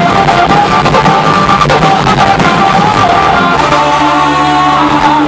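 Rock band playing live: electric guitars and a drum kit, loud and unbroken.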